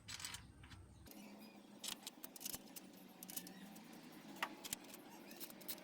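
Small metal clinks and ticks of bolts being handled and set into the camshaft bearing caps on a 4D56 cylinder head, scattered and faint.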